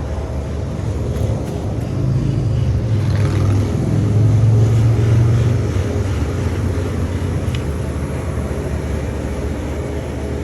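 Steady low mechanical hum with a few held tones, growing louder from about two seconds in and easing back after about six seconds.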